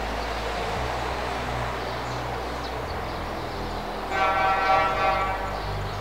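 Steady low rumble of distant traffic, with a horn sounding once, about four seconds in, for roughly a second and a half.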